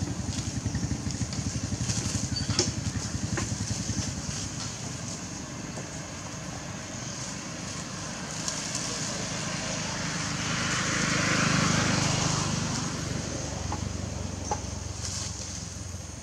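A small engine running in the background, loudest near the start, then a swell of noise that rises and fades about two-thirds of the way through, like a vehicle passing.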